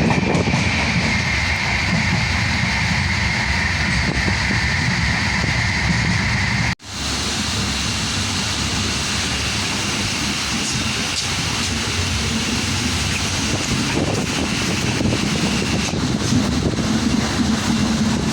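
Train running along the track: a steady, loud rumble with a faint high whine. The sound drops out abruptly for a moment about seven seconds in, then carries on.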